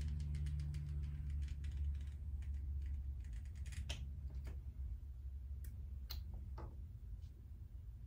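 Small metal chain clinking inside a plastic cup of paint as it is swirled to coat it: a quick run of light clicks, then a few separate clicks. A low hum fades underneath.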